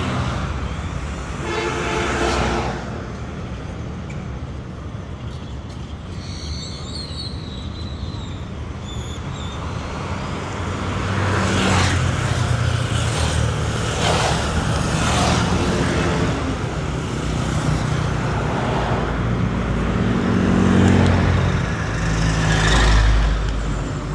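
City street traffic: vehicle engines running and passing, with a short car-horn toot about two seconds in and a heavier vehicle rumbling past near the end.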